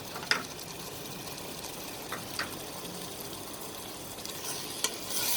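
Vegetables and curry masala sizzling in a pressure cooker, with a few light clicks; the sizzle grows louder near the end.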